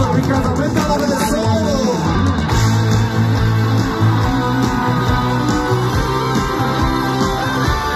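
Live rock band playing, electric guitars over bass and drums, amplified through the stage PA and heard from within the crowd.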